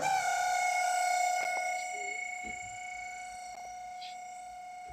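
Faulty microwave oven switched on and running with a steady high-pitched whine rich in overtones. It is loudest for the first second and a half, then settles lower and holds. This is the fault noise the repairer points to: the oven works but starts to howl after a while.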